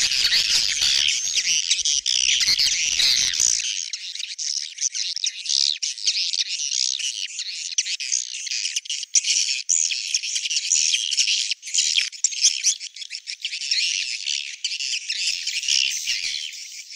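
Many swiftlets twittering and chirping together in a dense, unbroken chorus, of the kind used as a call to lure swiftlets into a swiftlet house.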